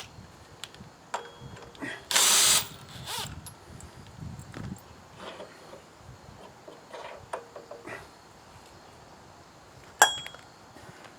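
Tools and parts clicking and knocking during hand work on a mini bike's torque converter clutch while a drive belt is fitted, with one loud half-second burst of hissing noise about two seconds in and a sharp click near the end.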